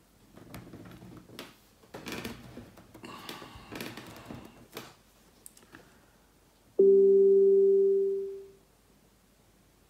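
Amazon Echo Spot's alert chime: one loud, clear tone that starts abruptly about seven seconds in, holds for about a second and fades out. It sounds as the device puts up a slow-connection warning during its software update download. Before it, a few seconds of faint irregular rustling.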